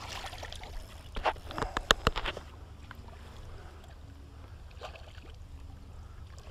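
Water splashing and sharp knocks as a hooked mullet is worked beside a landing net in shallow water, bunched about one to two seconds in. A steady low rumble follows.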